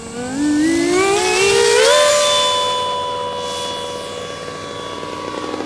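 Twin electric ducted fans of a GWS Me 262 foam model jet whining as the throttle is opened: the pitch rises for about two seconds, then holds steady while the sound slowly fades.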